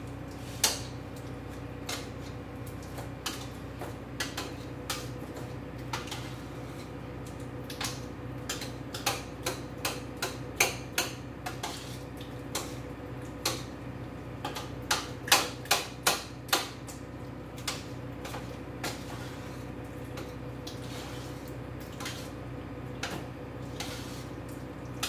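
A large metal spoon knocking against a stainless steel pot as boiled potatoes are mashed in it: irregular clinks and clanks, busiest in the middle, sometimes two or three a second.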